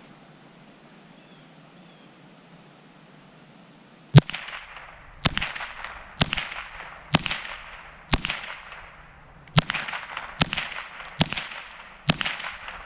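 Mossberg 702 Plinkster semi-automatic .22 LR rifle firing nine shots in quick succession, about one a second, starting about four seconds in; each sharp crack has a short echoing tail.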